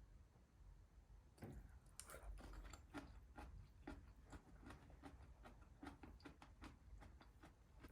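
Faint, irregular wet clicks of a person chewing food, starting about a second and a half in.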